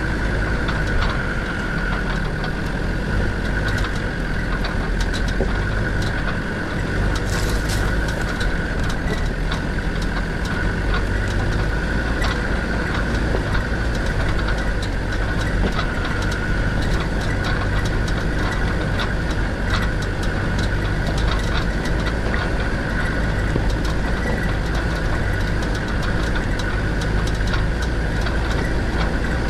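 Land Rover Defender 90's Td5 five-cylinder turbodiesel running steadily at low revs as the vehicle crawls over a rocky track, with a steady high whine on top and scattered clicks and knocks from stones and the body.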